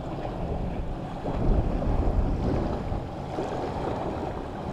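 Wind buffeting the microphone over the sound of water, with no motor running; the rumble swells for about a second roughly a second and a half in.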